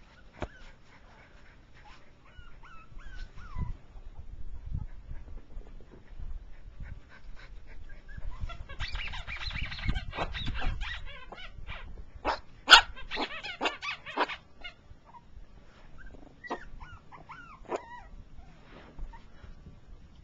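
Four-week-old Jack Russell Terrier puppies whimpering and yipping in short, high, squeaky calls that bend in pitch, a few near the start and again near the end. In the middle comes a few seconds of scuffling noise and clicks, with one sharp click, the loudest sound.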